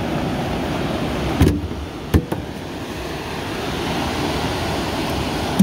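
Steady rushing noise of wind and sea, with two short knocks about one and a half and two seconds in.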